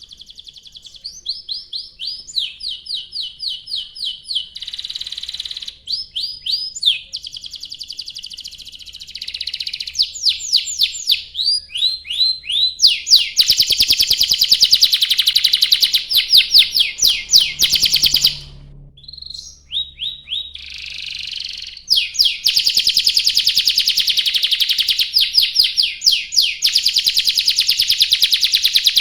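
Domestic canary singing a long continuous song of fast trills and rolled runs of high chirping notes, changing phrase every few seconds. There is a short break about two thirds of the way through.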